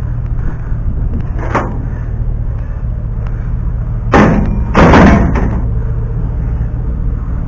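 White-enamelled sheet-metal stove panels banging into a pickup truck's steel bed as they are loaded for scrap: a lighter knock about a second and a half in, then two loud clanging bangs around four and five seconds in, over a steady low rumble.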